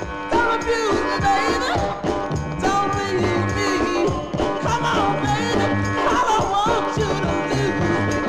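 1960s soul record playing: a lead voice singing over bass, drums and guitar.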